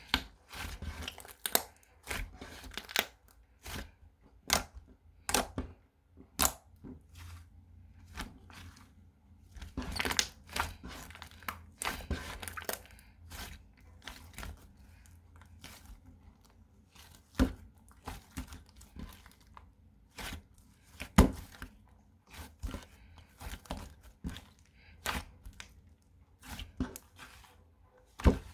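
Packaging being handled: irregular crinkling and tearing with scattered sharp clicks and knocks, in a small room.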